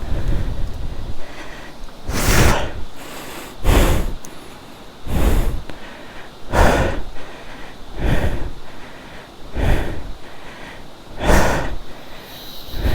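A person breathing hard, with a loud breath about every one and a half seconds, from heavy physical effort.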